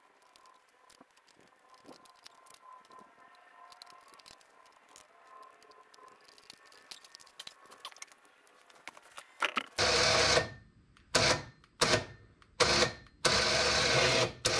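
Electric UTV winch powering in with a motor whine in short bursts, drawing the hook up against a winch stopper on the fairlead. The first burst lasts about a second, three short taps follow, then another of about a second near the end; before that only faint small clicks of handling.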